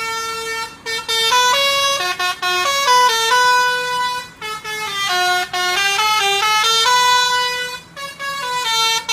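Truck's telolet (basuri) multi-tone air horn playing a melody: a string of bright held notes stepping up and down in pitch, with a few short breaks between phrases.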